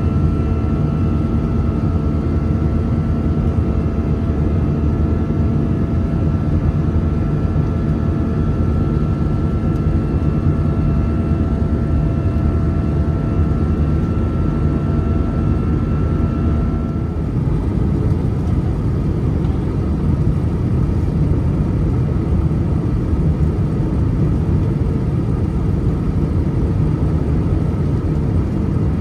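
Airbus A319 jet engines running loud and steady, a deep rumble with a steady whine over it. About seventeen seconds in, the whine drops away and the rumble carries on.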